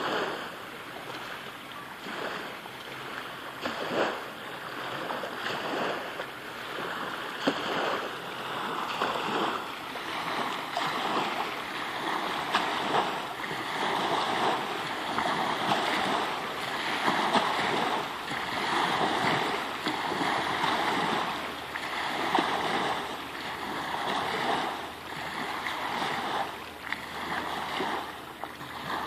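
River waves lapping and washing up a concrete boat ramp, the wash swelling and ebbing every second or two.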